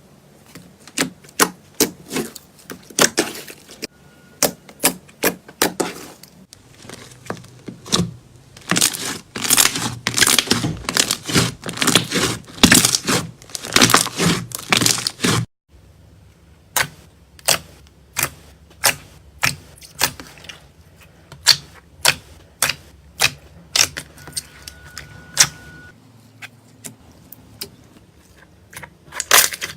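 Hands squeezing and poking slime, giving sharp clicking and popping sounds. A dense run of clicks cuts off suddenly about halfway through, then sparser single pops follow.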